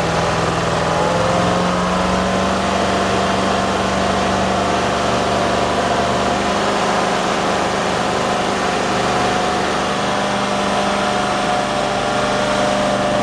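Amtex Inferno 500 truck-mount running steadily at raised speed, about 3000 RPM, through its extended silencers: a constant engine and blower hum that edges up slightly in pitch in the first second or two, then holds even.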